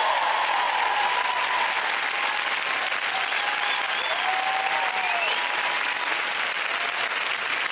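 Large studio audience applauding after a dance ends, dense steady clapping with scattered cheers and whoops over it.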